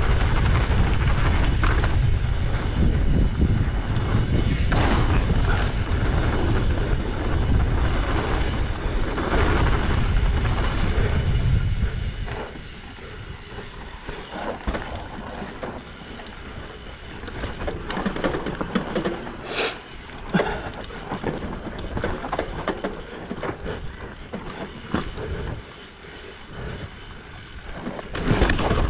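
Mountain bike descending a dirt trail: wind buffeting the camera microphone, loud for the first twelve seconds or so, then tyres rolling over dirt with the bike clicking and rattling over bumps, before the wind noise rises again near the end.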